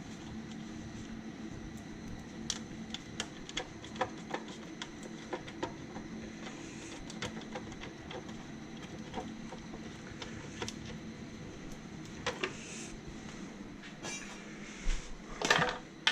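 Hand tools and engine parts clinking on metal in irregular light clicks while covers are unbolted from the V6 cylinder head, over a steady low hum. A louder rattle lasting about a second comes near the end.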